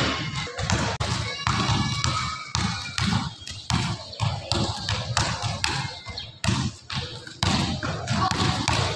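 A basketball being dribbled on an indoor court floor, bouncing steadily about twice a second. Each bounce has a short echo in the large gym.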